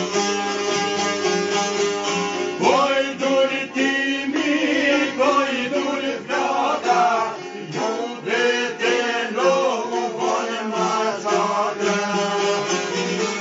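Several Albanian long-necked lutes, among them a sharki, plucked together in a folk tune. A man's voice comes in singing about two and a half seconds in, in long wavering phrases over the strings.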